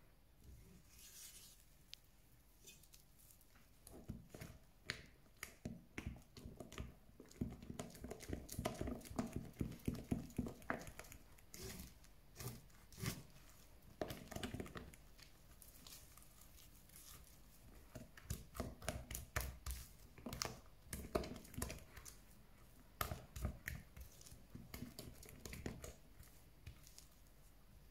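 Silicone spatula stirring and folding thick cake batter in a glass bowl: soft wet slaps and scrapes against the glass in quick, irregular runs of strokes, busiest about a third of the way in and again in the second half.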